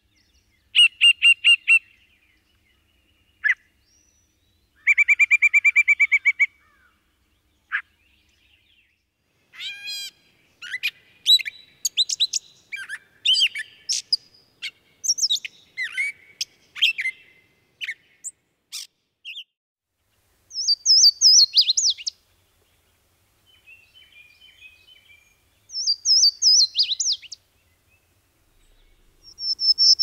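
Songbirds singing in turn: first a yellow-breasted chat giving separate rapid rattles and single whistled notes with pauses between, then a gray catbird singing a long jumbled run of varied squeaky notes. Near the end come a few short, high, falling phrases.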